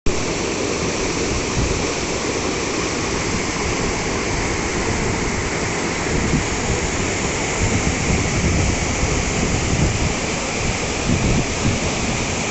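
Waterfall pouring steadily: a continuous rush of falling water.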